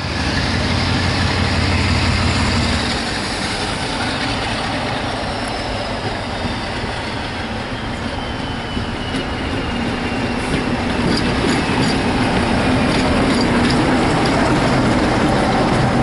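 Class 47 diesel locomotive hauling passenger coaches past, its engine giving a steady low drone that swells as the train draws level. A faint whine falls slowly in pitch through the middle. Sharp clicks of wheels over rail joints come in during the second half.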